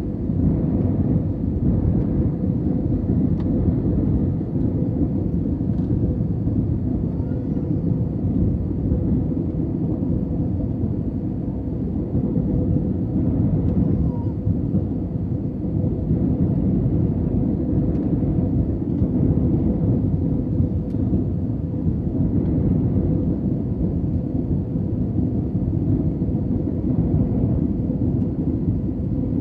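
Steady low roar of a Boeing airliner's cabin during descent: jet engine and airflow noise heard from a window seat, with a faint steady hum running through it.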